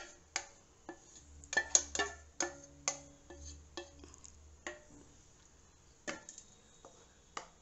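A wooden spatula knocking and scraping against a steel pot, emptying tomato juice into a wok: a series of irregular sharp taps, with the metal ringing briefly after several of them.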